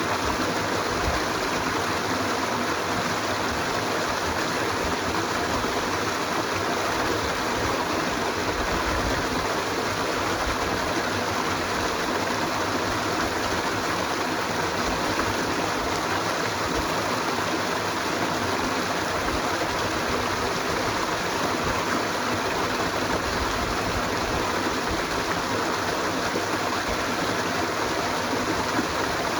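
Flowing water of a stream, a steady rushing without pause or change.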